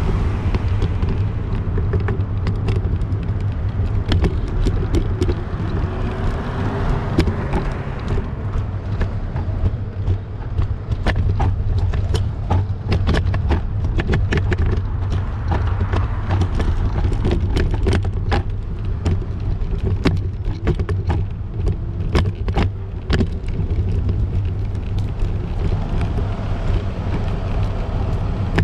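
Steady low rumble of wind buffeting the microphone, mixed with street and traffic noise, while riding a bike. Through the middle stretch comes a run of sharp clicks and rattles.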